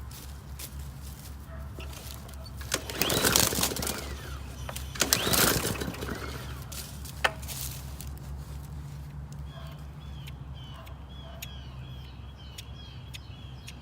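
Two pulls on a cheap push mower's recoil starter cord, each a rasping whir of about a second, roughly three and five seconds in. The engine does not catch: the mower won't start on fresh gas. Birds chirp in the background in the second half.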